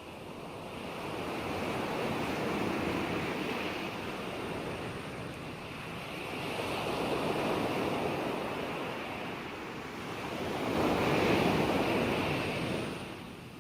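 Ocean waves breaking and washing on shore in three slow surges, each swelling and fading over a few seconds, the last the loudest.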